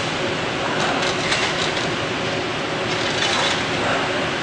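Automatic through-hole component insertion machine for PCB assembly running, a steady mechanical rattle and hiss with short runs of quick clicks about a second in and again past three seconds.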